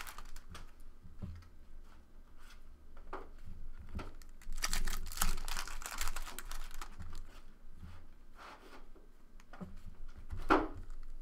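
Foil trading-card pack wrappers crinkling and tearing as packs are opened, with cards shuffled and handled between the bursts. A brief rising squeak comes near the end.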